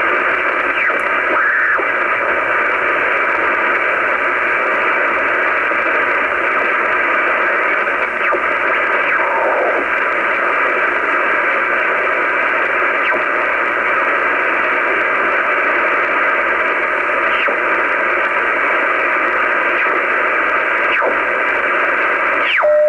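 Shortwave receiver hiss and static heard through the radio's audio, steady and band-limited, with a few faint steady tones under it as the set is tuned between stations toward the 49-metre band. Near the end a whistle sweeps quickly in pitch.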